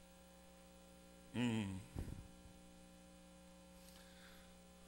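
Steady low electrical mains hum, with a short vocal sound about a second and a half in and a brief low thump just after it.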